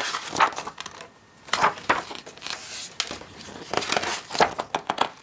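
Pages of a large hardcover art book being turned one after another by hand: paper rustling and flapping in several separate turns.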